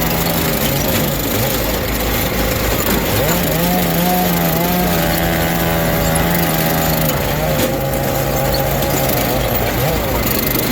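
Small petrol engine machinery running steadily; the engine pitch rises about three seconds in and drops again later, as the machine takes and sheds load.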